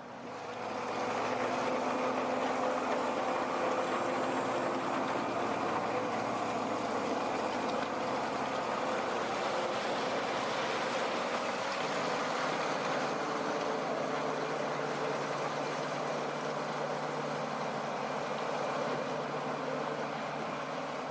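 Heavy vehicle engine running steadily, a constant mechanical rumble with a faint hum whose pitch shifts slightly partway through.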